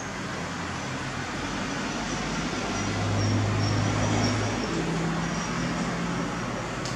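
A low motor hum over a steady hiss, swelling about halfway through and then easing off at a slightly higher pitch.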